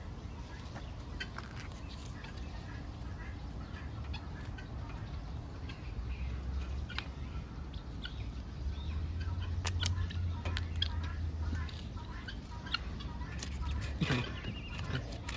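Birds calling faintly over a low rumble, with scattered short clicks that come thicker near the end.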